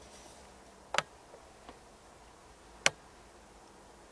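Two sharp clicks about two seconds apart, with a couple of softer ticks between them, over a faint steady background hiss.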